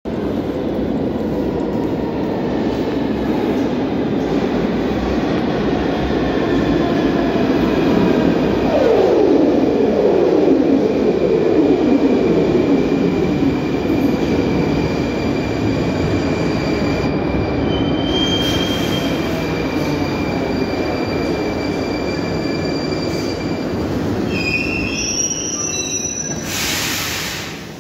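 Rusich 81-740.4 metro trains running into the station: a steady rumble of wheels and motors, with a whine that falls in pitch as a train slows about nine seconds in. Thin high squeals come later, then a short burst of hiss near the end before it goes quieter.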